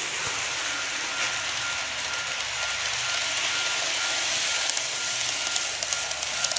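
N-gauge model train, a KATO 185 series, running on model track: a steady rolling whirr of wheels on rail that swells as it comes close, with quick sharp clicks over the rail joints from about five seconds in.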